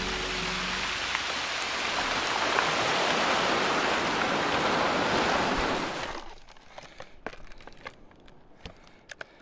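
Surf breaking and washing up a shingle beach, a steady rushing of water. About six seconds in it cuts off, leaving faint clicks and knocks of fishing tackle being handled.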